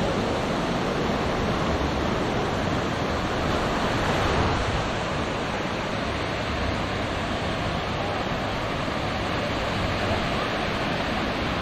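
Small waves breaking and washing up a sandy shore in a steady rush, swelling slightly about four seconds in, with some wind buffeting the microphone.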